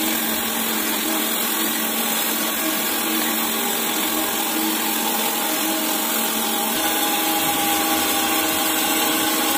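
Surface grinder running steadily, its wheel refacing the worn face of a toothed steel clutch plate under flood coolant: a steady machine hum with several fixed tones over a hiss. About seven seconds in the tones shift and the low end rises while the machine keeps running.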